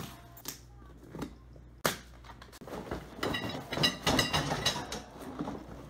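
A cardboard box holding a flat-packed metal shoe rack is handled, with a few sharp knocks and thumps, the loudest a little under two seconds in. Then the plastic-wrapped rack is slid out of the box, with crinkling plastic and rustling cardboard for about two seconds.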